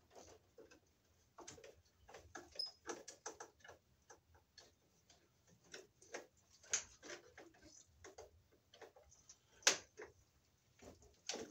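Screwdriver clicking and scraping on a circuit breaker's terminal screw as a wire is tightened down: irregular light clicks, with a sharper click about ten seconds in and another near the end.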